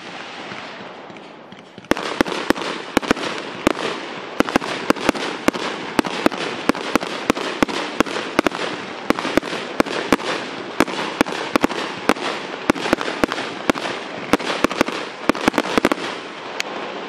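Fireworks going off: a fading crackle, then from about two seconds in a rapid, irregular run of sharp bangs, several a second, over a steady crackling hiss, dying away near the end.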